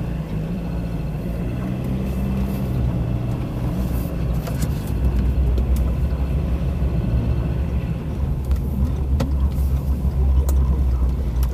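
Car engine and road rumble heard from inside the cabin while driving, growing louder about halfway through as the car picks up speed, with a couple of light knocks near the end.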